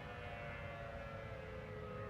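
Hawaii's outdoor civil defense warning sirens sounding the emergency alert tone test, a faint held siren tone made of several pitches that sinks slowly.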